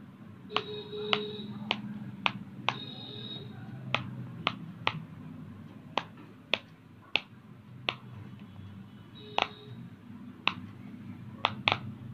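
Silicone push-pop fidget toy being pressed bubble by bubble, each bubble giving a sharp pop. The pops come about one or two a second at an uneven pace, over a low, steady background noise.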